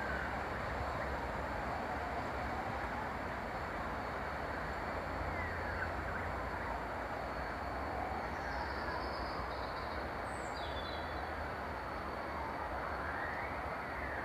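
Steady distant background rumble of town noise, with an emergency-vehicle siren wailing slowly up and down far off and a bird chirping briefly about ten seconds in.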